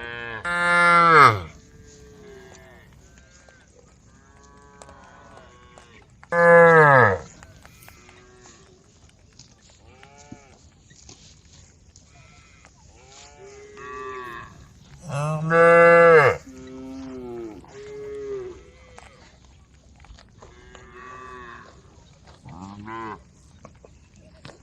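Cows mooing: three loud, long moos that drop in pitch as they end, spread through, with many fainter, shorter moos from other cattle in the herd between them.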